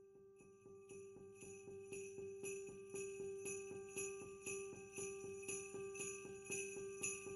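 Background music led by sleigh bells shaken in a steady beat over held tones. It comes in suddenly and grows louder.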